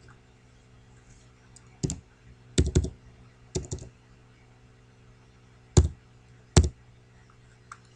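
A handful of separate computer keyboard keystrokes, sharp and loud, some in a quick cluster, typing digits into a number field. A faint steady hum sits underneath.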